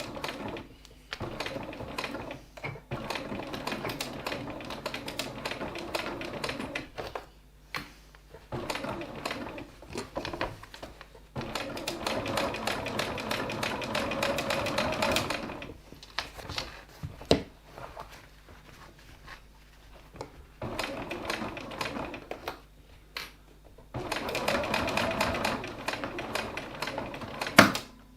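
Sewing machine top-stitching through the thick layers of a fabric wallet, running in several bursts of a few seconds with short pauses between them. A sharp click comes near the end.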